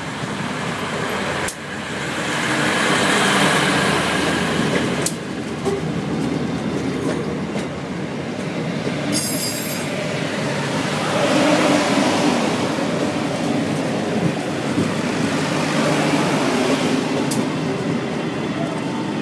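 Passenger train rolling past close by: a loud, steady rumble of wheels on rails with a few sharp clacks. A brief high-pitched wheel squeal comes about nine seconds in.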